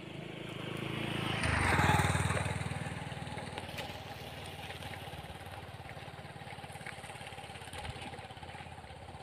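A motor vehicle's engine passing close by on a road. It is loudest about two seconds in, then fades as it moves away, leaving a quieter engine hum.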